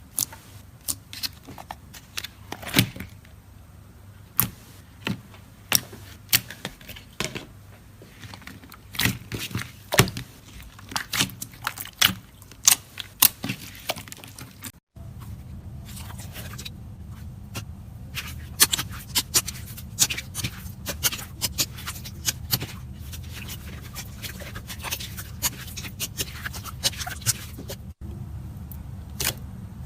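Slime being poked, pressed and stretched by hand, giving a run of sharp, irregular clicks and crackling pops. About halfway through there is a brief dropout, after which the pops continue over a steady low hum.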